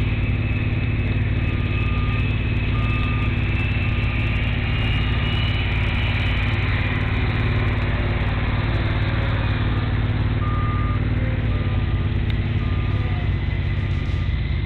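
Ride-on double-drum roller's engine running steadily while it compacts a dirt pad, its reversing alarm beeping about once a second for a few seconds early on and again from about ten seconds in.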